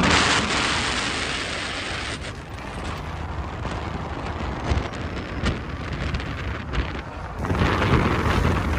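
Road and wind noise from a moving vehicle on an expressway: a steady rush of tyres and wind over a low engine drone, with wind buffeting the microphone. The noise swells louder near the end as the road passes under an overhead structure.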